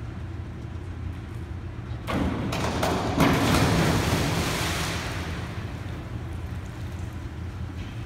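Diver's springboard dive: a few knocks of the board at takeoff about two seconds in, then the splash of her entry into the pool about a second later, a loud rush that fades away over a couple of seconds.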